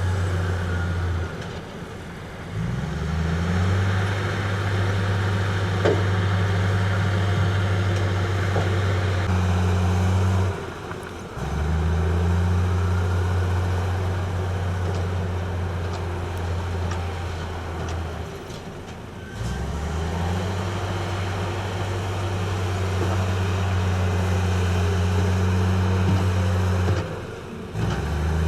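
Heavy diesel engine of earthmoving machinery running under load with a deep, steady hum. Its note sags and then climbs back up about every eight seconds, as the machine works through repeated cycles.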